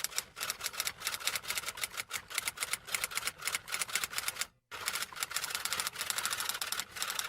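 Rapid typewriter key clicks, breaking off briefly about four and a half seconds in before carrying on.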